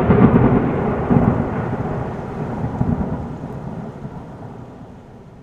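A long rumble of thunder, loud at first and fading away steadily over several seconds.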